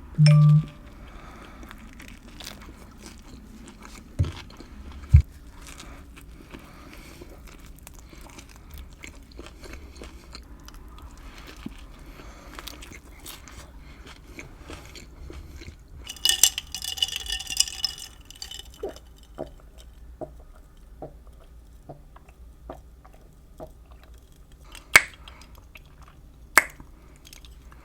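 Close-miked eating of a chicken seaweed wrap: biting and chewing with wet mouth clicks and smacks, and a burst of crisp crunching about 16 seconds in. A brief loud low tone sounds at the very start.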